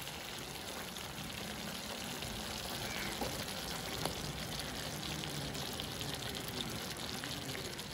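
Cream sauce simmering steadily in a pan, a soft bubbling hiss, with a couple of faint clicks.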